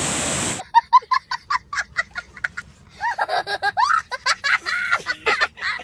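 High-pitched laughter: a quick run of short 'ha' sounds, about four or five a second, then longer laughs whose pitch rises and falls. A steady rushing noise cuts off suddenly about half a second in, before the laughing starts.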